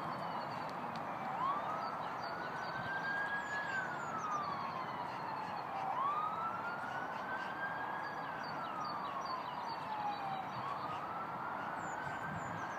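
A siren wailing, its pitch rising slowly, holding briefly, then falling, with each cycle taking about five seconds. It sounds over a steady background hiss, with short high chirps now and then.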